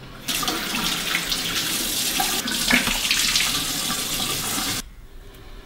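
Bathroom tap running into a sink with a steady rush, turned on just after the start and shut off abruptly about a second before the end.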